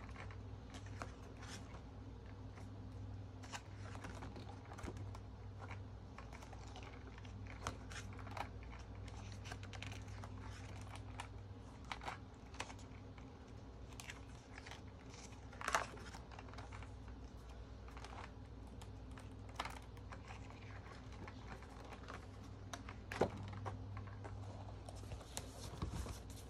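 Paper handling: the pages of a spiral-bound photo calendar being turned by hand, giving scattered light rustles and taps, with a few sharper clicks about two-thirds of the way through and again near the end. A steady low hum runs underneath.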